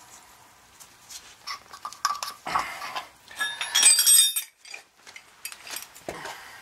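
Metal clinks and rattles of a fuel-oil filter canister and its lid being handled. A bright, ringing clatter comes about three and a half to four seconds in, with scattered clicks before and after.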